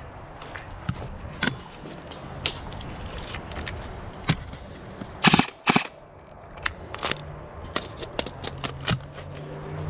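Airsoft gunfire: scattered single sharp cracks at irregular intervals, with two louder, slightly longer shots close together about halfway through.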